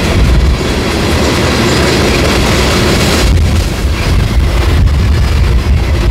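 Freight train cars rolling past with a loud, steady rumble and rattle of steel wheels on the rails, with a few sharper clacks in the middle.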